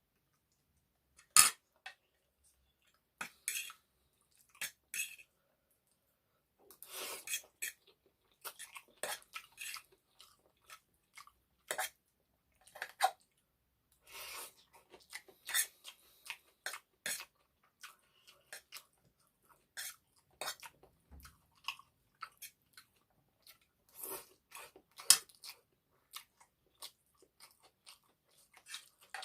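Close-miked chewing and wet mouth sounds of someone eating egg noodles with chicken curry, coming in irregular short smacks, with occasional clinks of a utensil on a dish.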